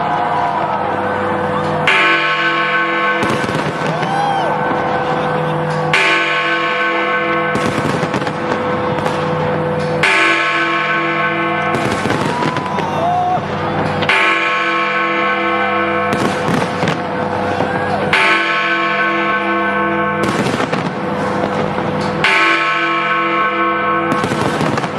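Big Ben striking the midnight hour, one deep bell stroke about every four seconds, each ringing on long after it is struck. Fireworks bang and crackle throughout, with a few whistling rockets.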